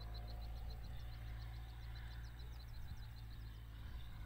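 A fast series of short, high chirps, about five a second, that stops near the end, over a steady low rumble.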